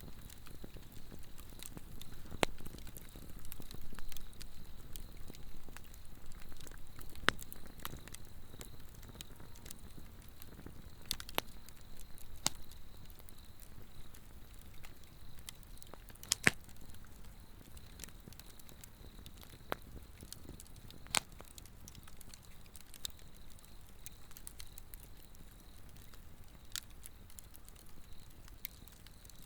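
Swedish torch log fire burning and crackling, with irregular sharp pops over a low rush of flame; the loudest pops come about halfway through. A steady high insect trill runs underneath.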